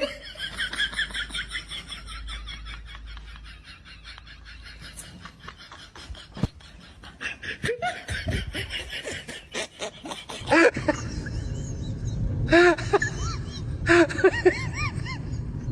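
A person laughing: fast, high giggling at first, then from about ten seconds in, louder bursts of laughter.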